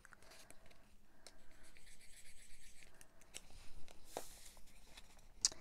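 Faint rubbing and scratching of a bone folder on die-cut cardstock, with a few light ticks as paper is handled.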